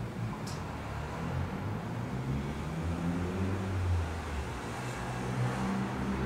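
Road traffic heard through a window: a vehicle's engine hums low as it passes, swelling about halfway through and again near the end, over a steady hiss of road noise. A faint short tick comes about half a second in.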